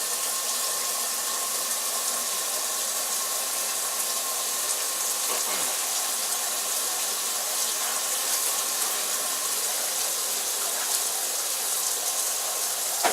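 Steady rush of hot water from an open sink tap fed by a running Navien NPE-180 tankless gas water heater, with a faint steady tone under the hiss.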